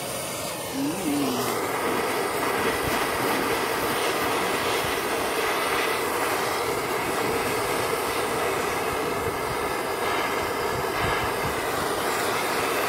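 Handheld gas torch burning steadily, its flame heating a copper water pipe joint up to soldering temperature.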